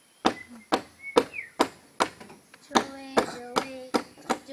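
Sharp, irregular taps and knocks, two or three a second. From about halfway a person's voice joins in on drawn-out notes.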